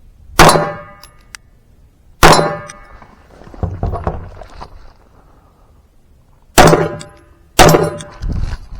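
Four pistol shots, two about two seconds apart, then a pause of about four seconds, then two about a second apart. Each is followed by a short metallic ring.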